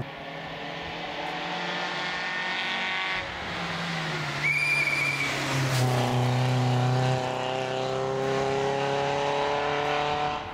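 Renault Clio rally car's engine revving hard through a bend, with a gear change about three seconds in. A brief high tyre squeal follows a second or so later, then the engine's pitch rises steadily as the car accelerates away.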